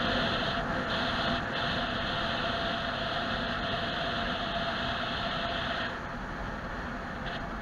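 Steady road and engine noise of a moving car, heard from inside the cabin through a dashcam microphone, with a higher hiss that drops away about six seconds in.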